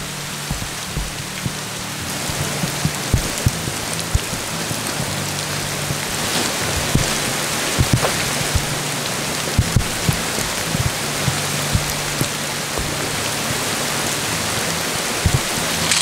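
Steady rain falling on a gravel campsite, with scattered sharp taps of drops and impacts throughout. Soft background music with a low bass line runs underneath.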